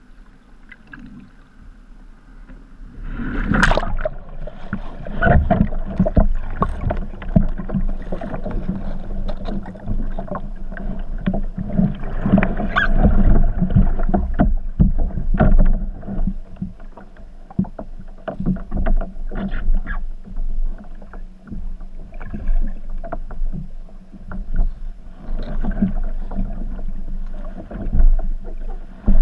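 A kayak capsizes with a splash about three seconds in. After that comes churning water, bubbling and many sharp knocks, heard through a camera held under water on the upturned hull. It is a failed roll attempt that turns into a wet exit.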